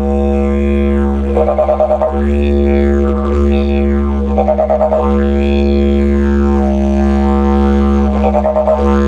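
Didgeridoo playing a steady low drone while the player calls through it to imitate a kookaburra: three rising-and-falling calls, each ending in a rapid fluttering laugh, about a second and a half in, midway and near the end.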